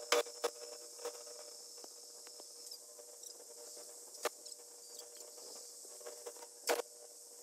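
A handful of sharp knocks, the loudest just after the start and near the end, over a steady faint hum and high hiss.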